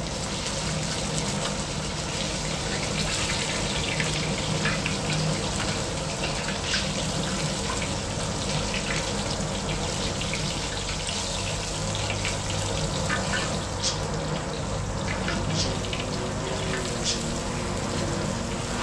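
Chunks of striped bass frying in hot oil in a large round pan: a steady sizzle with scattered crackles and pops.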